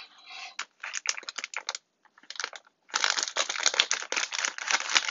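Thick apple pie filling simmering in a pot, its bubbles popping and spitting as a rapid, irregular crackle of small ticks, scattered at first and dense over the last two seconds.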